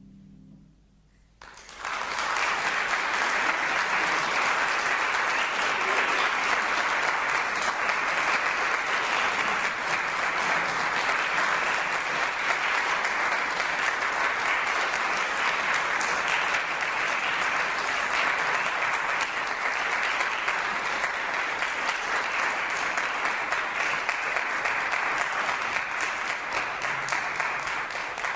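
Audience applauding: after the last harp notes fade, a dense, steady round of clapping starts about a second and a half in and keeps going.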